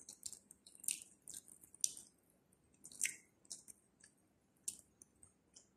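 Faint eating sounds: a person chewing, with scattered short wet smacks and clicks of the mouth.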